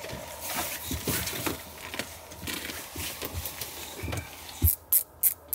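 Irregular knocks, thumps and shuffling on the wooden porch and door of a truck camper as a person in snow gear comes out and crouches. Near the end comes a quick run of short swishing scrapes, about three a second.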